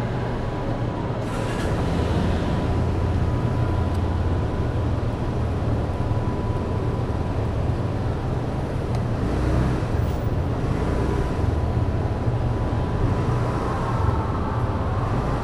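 Underground car park ambience: a steady low rumble of ventilation and vehicle engines, with a faint steady thin tone. A brief hiss comes about a second and a half in.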